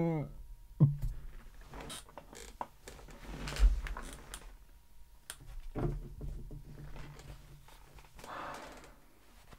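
Quiet handling noise of a person shifting in a desk chair: scattered small creaks, clicks and knocks with cloth rustling, and a couple of breathy exhales, about three and a half seconds in and near the end.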